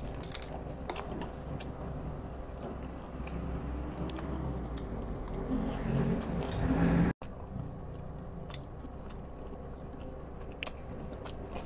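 Close-up chewing of a crunchy fried bite with the mouth closed: moist mouth sounds with small crunches and clicks. It cuts out suddenly for a moment just after the middle, then the chewing goes on.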